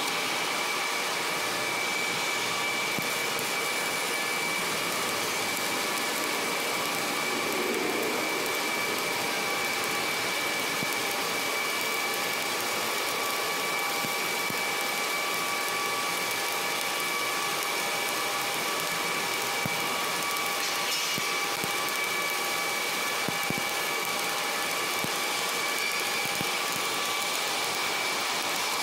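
Welding equipment running: a steady hissing noise with a high, steady whine through it.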